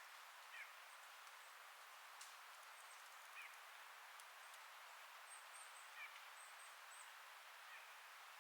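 Faint forest ambience: a steady soft hiss of wind through the trees, with a bird giving four short falling chirps a couple of seconds apart and a few very high, thin notes near the end.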